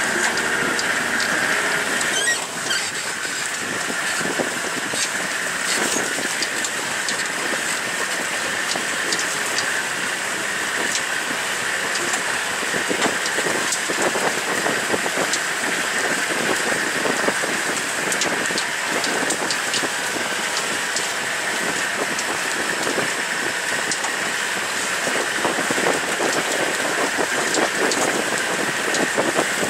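Open safari vehicle driving over rough grassland: steady engine and road noise with frequent small knocks and rattles throughout.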